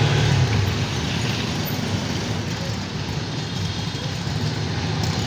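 Auto-rickshaw engine running steadily as the rickshaw drives along, heard from inside the open passenger cabin with road and traffic noise around it.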